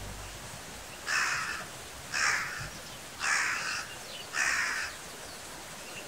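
A crow cawing four times, harsh calls evenly spaced about a second apart.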